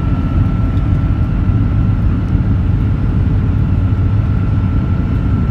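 Combine harvester driving along a paved road, heard from inside the cab: a steady low engine drone with a thin constant whine above it.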